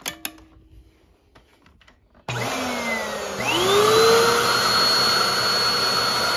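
Hoover WindTunnel upright vacuum cleaner switched on after a few faint clicks: the motor starts about two seconds in, spins up with a rising whine, then runs steadily with a rush of air. The brush roll is not turning, which the owner puts down to a faulty belt.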